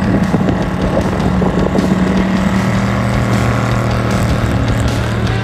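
Ultra4 buggy's engine running hard as the car drifts on the ice, holding one high steady pitch, then dropping to a lower steady pitch about halfway through.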